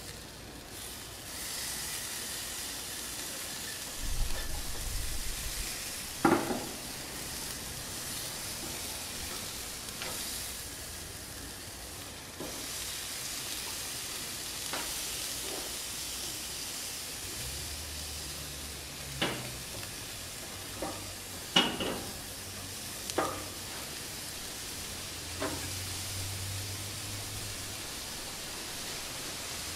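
Marinated shark steaks sizzling on a gas grill, a steady hiss, broken by sharp clicks and knocks of a spatula on the grates as the steaks are turned. One knock comes about six seconds in, and a cluster of them near the twenty-second mark.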